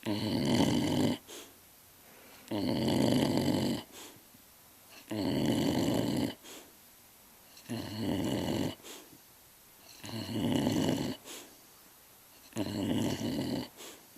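A dog snoring in its sleep: six long snores, each a little over a second, coming about every two and a half seconds.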